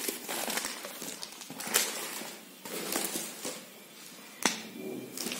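Rustling handling noise with a few sharp clicks and knocks, the strongest near the middle and near the end.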